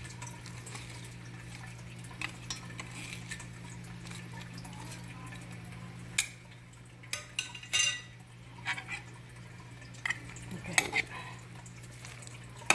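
A salad being tossed with green plastic salad servers in a ceramic bowl: greens and cucumber slices rustling, with scattered clicks and knocks of the servers against the bowl and a cluster of sharper clacks about six to eight seconds in. A steady low hum underneath.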